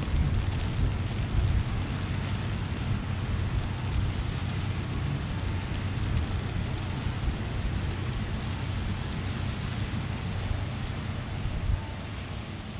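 Steady low rumble with an even hiss over it, the outdoor background noise of a city street; it drops a little in level near the end.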